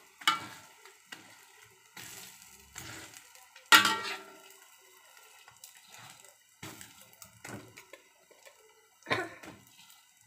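A metal spatula scraping and knocking against a wok several times while turning and pressing an omelette, the loudest clank about four seconds in.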